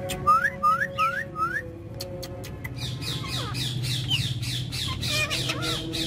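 Alexandrine and Indian ringneck parakeets calling: four short rising whistled calls in the first second and a half, then from about three seconds a rapid run of short squawks, several a second. Background music with steady held notes plays underneath.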